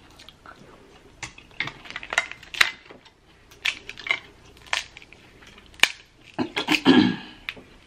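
Boiled Dungeness crab shells cracking and snapping as the legs are broken apart by hand: a string of sharp, crisp cracks, with a quicker cluster of them near the end.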